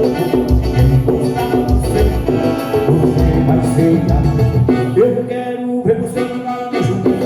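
Live band music with a steady bass beat and shaker or tambourine percussion under pitched instruments; the bass drops out for about a second near the end.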